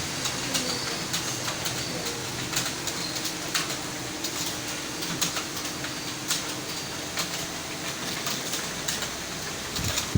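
Computer keyboard being typed on fast during a typing speed test: rapid, uneven clicking of keystrokes over a steady room hum.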